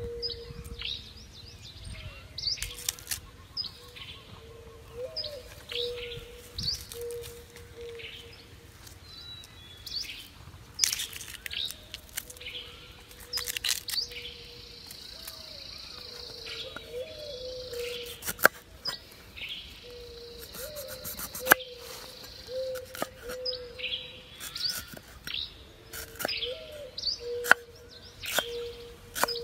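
Forest birds chirping, with a repeated lower call, over the handling of lemongrass stalks and sharp cleaver chops on a wooden chopping board. The chops are the loudest sounds, standing out in the second half.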